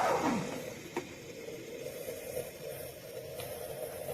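Queyd 3.5-bar steam espresso machine hissing softly and steadily as it brews, just after being switched from the steam wand back to brew, with a single click about a second in.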